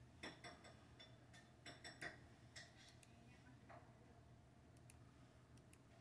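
Faint clicks of a computer mouse, several close together in the first three seconds and a few scattered ones after, over a faint steady low hum.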